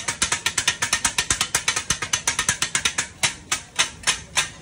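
Two flat steel chopping blades striking a flat iron griddle, mincing egg in the rapid, rhythmic clatter of kothu-style chopping. The strikes come about nine a second, then slow to a few spaced strikes and stop near the end.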